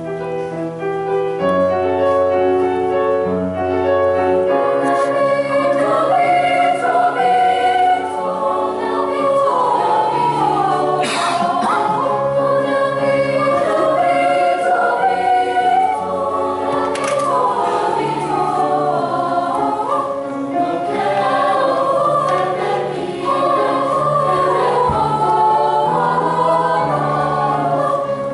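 Junior high school choir singing in several parts, holding sustained chords that change every second or so.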